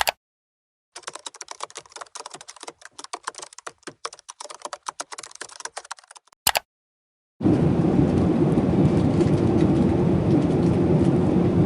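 Rapid, irregular clicking of keys being typed on a keyboard for about five seconds. After a short gap, the steady engine and air noise of an airliner cabin in flight starts and holds loud and even.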